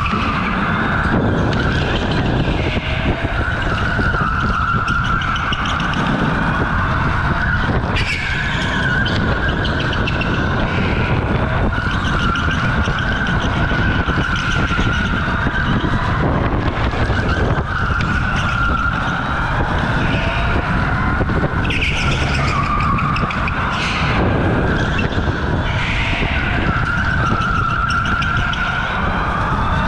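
OTL Storm electric go-kart at speed, its motor whining and the pitch rising and falling with speed through the laps, over a steady low rumble. Tyres squeal in bursts through the corners.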